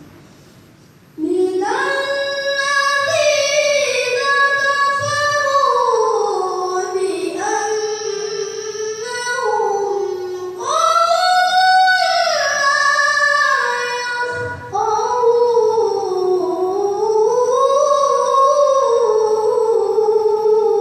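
A child's solo voice reciting the Quran in melodic tilawah style. It sings long, slowly gliding, ornamented phrases, starting about a second in and pausing briefly for breath twice.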